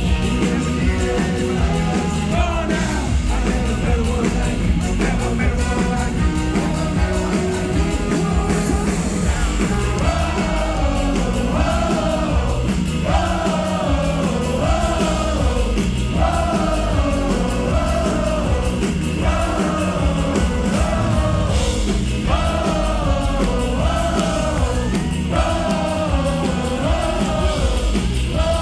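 Live band music with singing, loud and steady over a driving beat. From about ten seconds in, a short falling melodic phrase repeats over and over.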